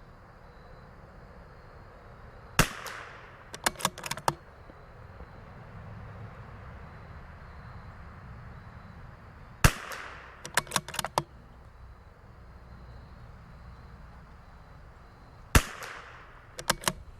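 CZ 457 bolt-action .22 LR rifle firing three single shots about six seconds apart, each followed about a second later by a quick run of clicks as the bolt is worked to eject the case and chamber the next round.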